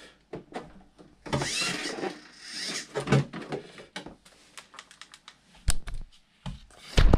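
Workbench handling of an RC boat: clicks, rustling and rubbing as a rubber cooling hose is fitted to the rudder's water inlet, with two dull thumps near the end.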